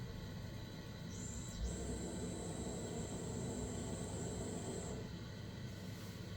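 Vaillant combi boiler on a start-up attempt: a click about one and a half seconds in, then a steady high-pitched whine with a low hum under it for about three seconds before it stops.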